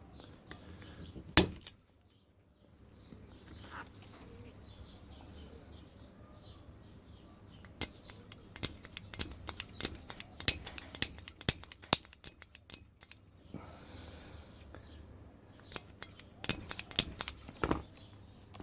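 Sharp metallic clicks from a centre punch being worked against a lock, which the owner finds is not working: one loud snap about a second in, a fast run of clicks in the middle and a few more near the end. Birds chirp faintly in the background.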